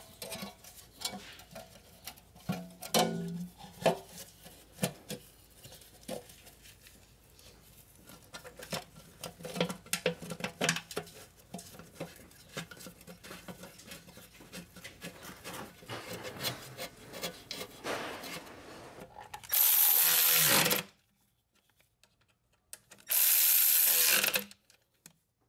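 Clicks, knocks and scraping as a torque converter cover is worked into place against the transmission. Then a cordless ratchet runs twice, about a second each time and loud, driving in the cover's bolts.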